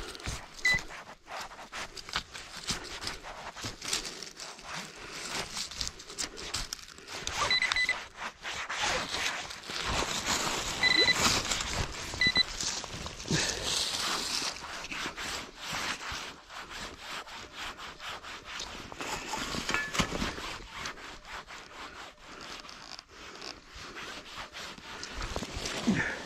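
Gloved hands rummaging and scraping through loose dug soil and dry fallen leaves. A few short high electronic beeps from the metal-detecting gear sound now and then, most of them in the first half.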